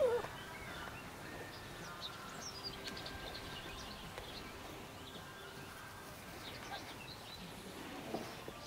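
English Springer Spaniel puppies at play: a short falling whine-yelp right at the start, then a quiet background with scattered faint high chirps.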